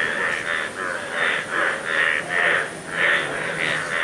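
A chorus of Indian bullfrogs (yellow breeding males) croaking: loud, harsh, overlapping calls, about two to three a second. These are breeding-season mating calls.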